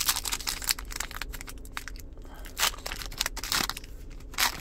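Wrapper of an NBA Hoops trading card pack crinkling and tearing as it is opened, a run of quick crackles with louder rustles about halfway through and near the end.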